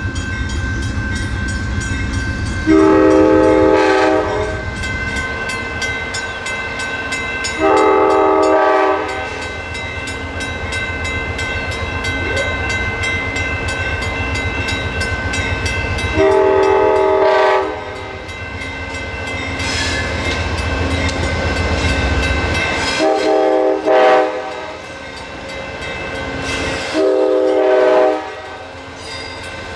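Amtrak GE Genesis diesel locomotive sounding its air horn for a grade crossing: five chord-like blasts, the fourth shorter, over the low rumble of the approaching train. Crossing bells ring steadily throughout.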